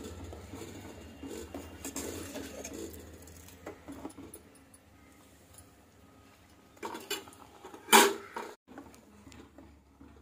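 Steel spoon stirring and scraping through vermicelli payasam in a steel pot, with soft irregular clicks. About eight seconds in comes one loud, sharp clatter.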